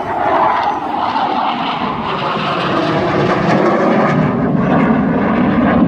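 Hawker Hunter T7 jet flying past, its Rolls-Royce Avon turbojet heard as a loud, broad rushing noise whose pitch slides steadily lower.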